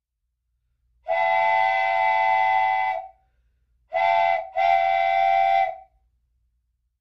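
Battery toy train's electronic horn sound effect sounding three times: a long blast, a short one, then another long one.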